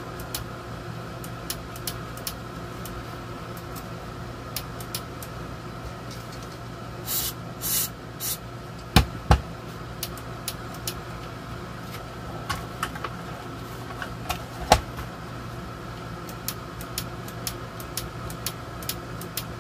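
Air conditioner running with a steady hum, under scattered small clicks and taps, a few sharper knocks around nine and fifteen seconds in, and two short hisses about seven seconds in.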